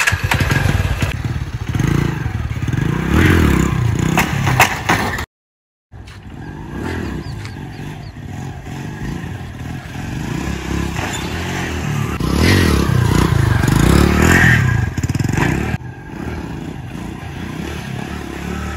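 TVS Star City 100 cc motorcycle's single-cylinder engine revving up and falling back in repeated surges as it is ridden in wheelies. The sound drops out completely for about half a second about five seconds in.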